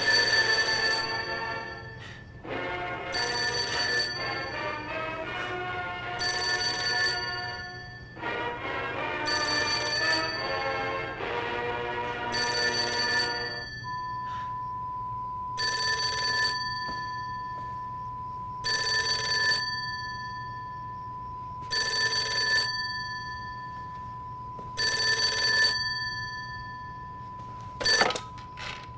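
A telephone ringing repeatedly, one ring about every three seconds, with music over the first half. From about halfway a steady high tone runs under the rings, and a short clatter near the end is the phone being picked up.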